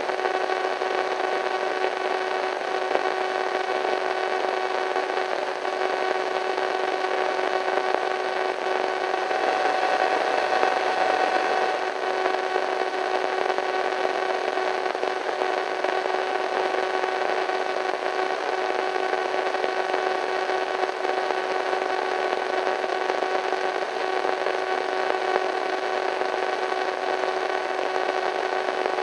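Radio static: a steady hiss of white noise with several faint steady tones humming through it, swelling slightly about ten seconds in.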